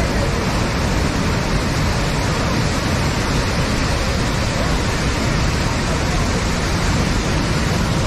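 A large cascading waterfall in heavy rainy-season flow, its water rushing down the rocks in a loud, steady, unbroken noise.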